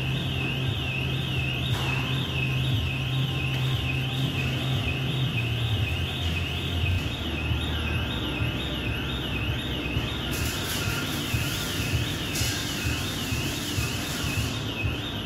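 A high electronic tone warbling up and down about twice a second, alarm-like, over a steady low hum that drops in pitch about six seconds in.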